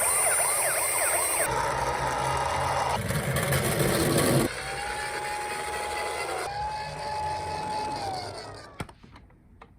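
Emergency vehicle sirens, one pattern after another, changing every second or two: a fast warbling sweep, then steady tones, then long notes that slide downward. The sound fades out about nine seconds in.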